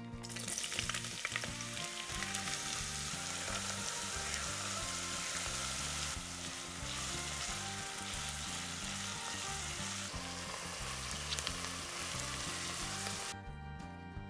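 Chopped onion frying in vegetable oil in a pot: a steady sizzle that cuts off shortly before the end.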